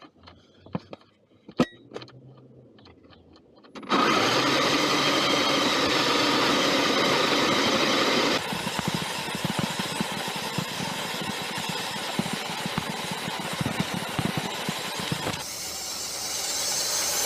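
A few soft clicks, then about four seconds in a scale RC Beetle (FMS/RocHobby 1:12 People's Car) starts driving: its motor and drivetrain run steadily. From about eight seconds in it is quieter, with a rapid rattling of the wheels and body over rough stone pavers.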